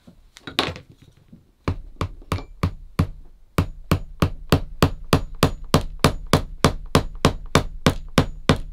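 Hammer tapping lemonwood pegs into the leather heel rand of a shoe on its last. A few spaced taps come first, then from about halfway through a steady run of about four taps a second.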